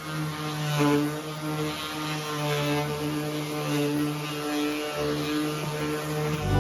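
A steady engine-like drone held at one pitch, with a hiss above it.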